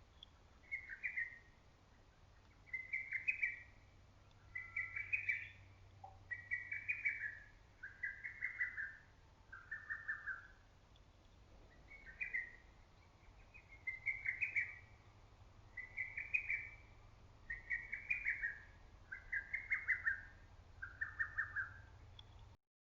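Lesser cuckoo singing its rapid staccato phrase over and over, about once a second, in two runs with a short pause between them. The sound cuts off suddenly near the end.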